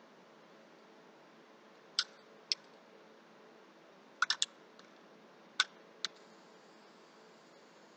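Several short, sharp light clicks at irregular intervals, including a quick run of three in the middle, over a faint steady hiss.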